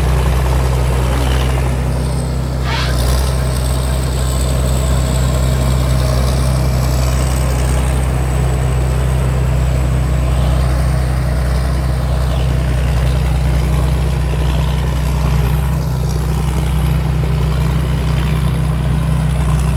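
Combine harvester's engine and threshing machinery running steadily while harvesting rice: a loud, even drone with a faint high whine over it for part of the time.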